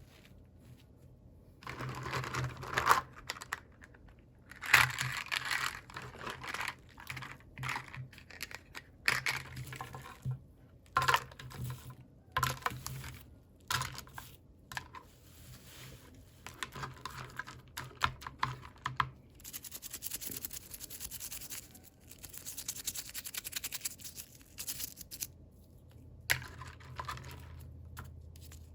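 Hands unboxing small toys: plastic packaging crinkling and tearing, with scattered small clicks and taps, in irregular bursts after a short quiet start.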